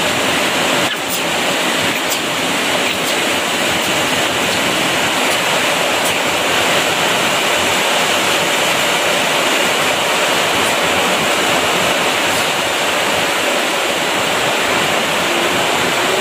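Heavy rain pouring down, a loud, steady, dense hiss with a few faint ticks of drops striking close by.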